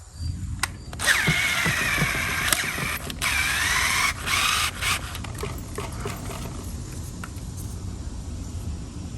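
Cordless drill driving a wood screw into a countersunk hole in softwood. The motor whines in two runs of a couple of seconds each in the first half, its pitch wavering as the screw bites and seats.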